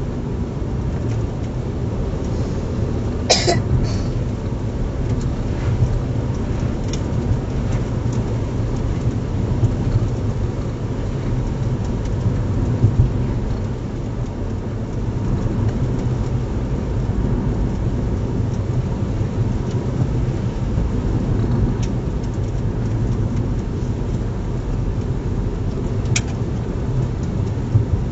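Steady low rumble of a Kia Rio hatchback driving, heard from inside the cabin: engine and road noise on a wet road. A brief sharp noise cuts in about three seconds in.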